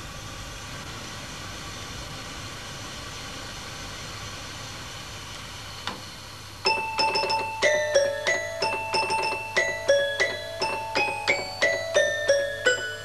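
Small electronic toy keyboard played one note at a time: a quick tune of short chiming notes, about three a second, starting a little over halfway through. Before the tune there is a steady hiss and a single click.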